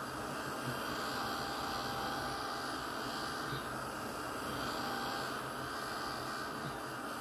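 Small handheld heat gun running steadily, a constant hiss of blown hot air used to dry gesso-soaked tissue paper.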